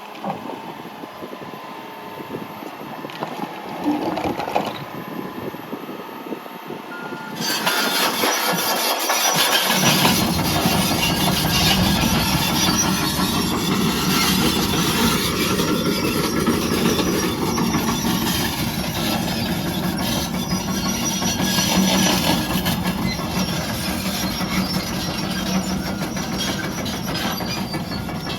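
John Deere 210G LC track excavator's diesel engine and hydraulics working. The machine gets much louder about eight seconds in and stays at a heavy, steady working level.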